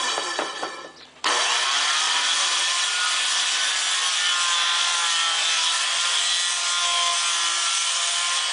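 Handheld circular saw cutting a curve through a thin plywood panel. In the first second the saw's sound drops away with a falling pitch. About a second in it starts again abruptly and cuts steadily through the wood.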